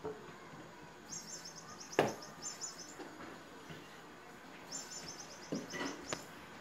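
Soft knocks and taps of a kitten pouncing on and batting a toy mouse across a wooden parquet floor, the sharpest about two seconds in and a few more near the end. Short, rapid high chirping trills come and go in the background.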